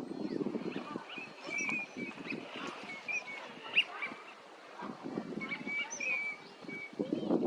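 Eurasian teal calling: short, high whistled notes given in quick runs, in two bouts a few seconds apart, over a low, steady background rumble.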